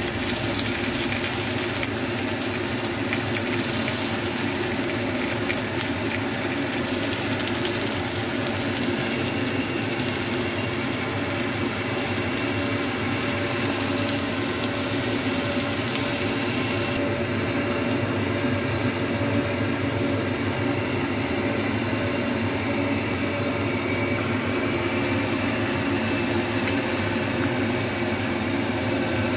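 Sliced red onions sizzling in oil in a skillet, over a steady mechanical hum. The high hiss drops abruptly about halfway through.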